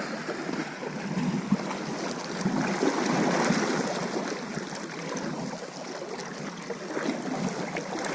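River water flowing, a steady rushing noise that swells a little a few seconds in.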